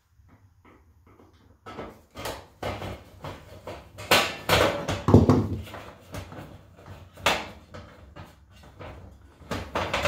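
Thin sheet-metal access cover on the back of an electric range rattling and clanking as it is worked loose and slid off its hooks, a run of sharp metallic knocks with the loudest about halfway through.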